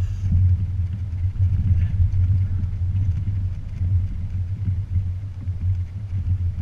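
2016 Toyota Tacoma TRD Off-Road pickup driving over desert terrain: a low, uneven rumble.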